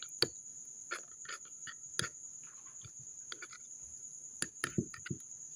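A metal spoon stirring sticky borax-activated glue slime in a glass bowl, giving scattered wet squelches and clicks of the spoon against the glass. A steady high-pitched whine runs underneath.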